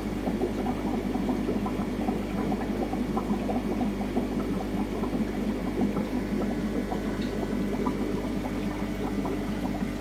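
Steady bubbling and trickling of aquarium water from the tank's filtration and aeration, with a constant low hum underneath.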